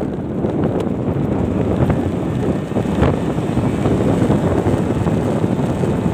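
Wind buffeting the microphone of a phone filming from a moving motorcycle: a loud, steady low rush with a few small knocks.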